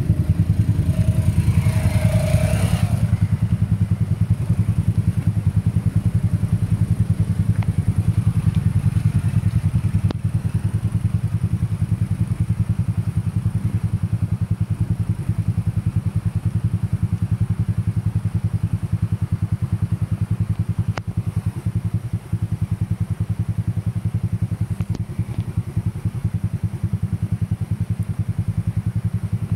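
Small underbone motorcycle engine running steadily at low speed, carrying its rider up a rough, rocky dirt track.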